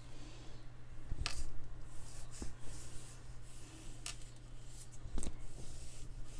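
Watercolour brush strokes on paper, a soft faint rubbing, with three light clicks spread through, over a faint steady hum.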